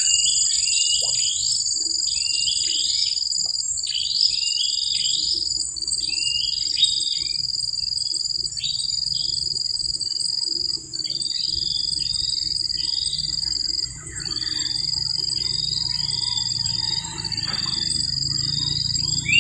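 Birds chirping in many short, falling calls over a steady high-pitched insect drone that breaks off and starts again every second or two.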